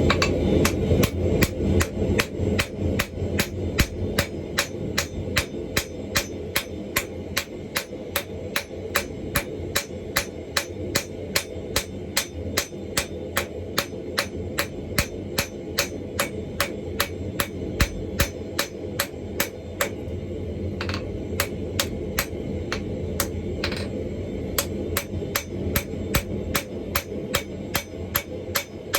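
Hammer blows on hot steel as a 2-inch ball bearing is forged out, an even run of sharp strikes at about three a second, over a steady low rumble.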